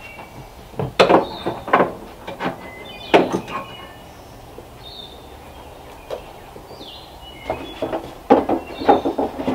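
Clanks and knocks of metal being handled on a Norwood bandsaw sawmill's blade housing, in several short clusters, the loudest near the end as the hinged sheet-metal blade guard is swung shut over the band wheel.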